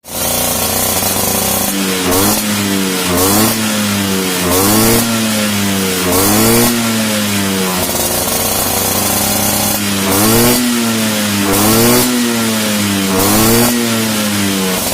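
Vespa Sprint's stock two-stroke single-cylinder engine, breathing through an AJS racing exhaust, idling and then revved in seven quick throttle blips, each rising sharply and falling back slowly to idle, with a stretch of idle between the first four and the last three.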